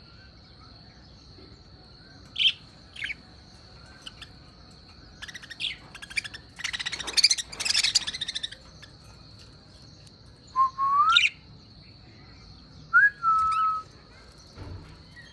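Lovebirds calling: a few sharp single chirps, then two seconds of loud, rapid chattering about midway. Later come two pure whistled notes that rise in pitch. A steady high-pitched whine runs underneath.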